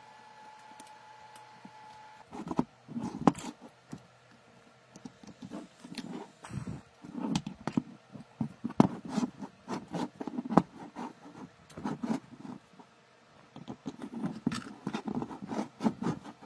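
Irregular knocks, taps and clicks of hands handling a small wooden board fitted with wires, a coil and components, as it is picked up, turned over and set down. A faint steady whine stops about two seconds in.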